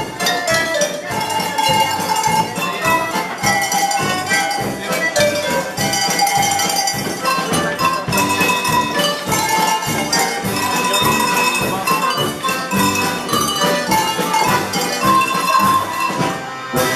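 A tune played on a set of tuned cowbells, many bells of different pitches struck in a quick, steady rhythm to carry the melody.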